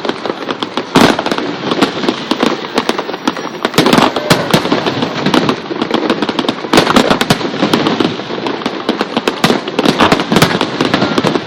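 Aerial fireworks display: a dense, continuous barrage of bursts and crackling reports, with the sharpest bang about a second in.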